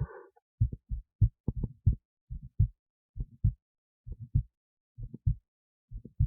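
Human heartbeat picked up by an esophageal stethoscope inside the esophagus: deep thuds in lub-dub pairs, a little under one beat a second. A steady hum cuts off just after the start.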